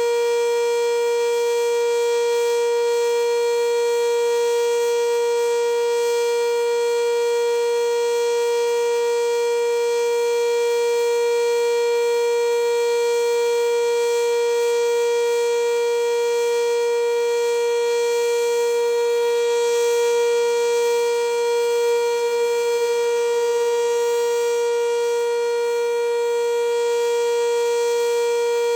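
Sentry 3V8 outdoor warning siren sounding a steady, loud tone during its routine test, held at one pitch without rising or falling, with a weaker tone an octave below.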